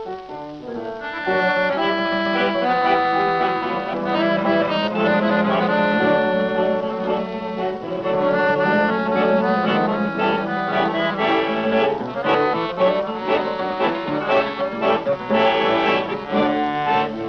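Instrumental music with accordion and brass.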